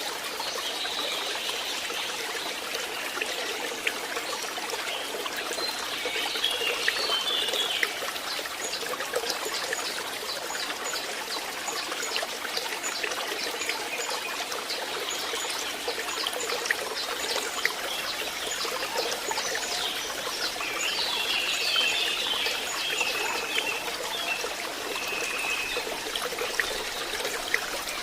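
Water trickling and splashing steadily in a forest stream, with high chirping calls twice, once early and again in the later part.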